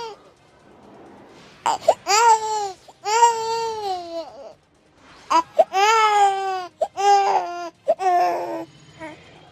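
Infant crying: about five loud wails, each rising and then falling in pitch, broken by short gasps and pauses, after a quieter first second and a half.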